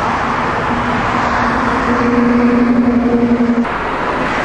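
Road traffic: cars passing on a busy road, with a steady hum in the noise that stops suddenly about three and a half seconds in.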